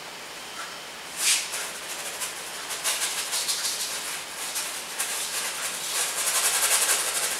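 Bristle paintbrush scrubbing acrylic paint onto a stretched canvas: a scratchy hiss of quick, short strokes. There is a brief swish about a second in, and the scrubbing runs steadily from about three seconds in, growing louder and faster near the end.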